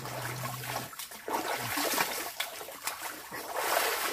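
Lake water splashing and trickling as a person bathes in it, in uneven splashes that swell about halfway through and again near the end.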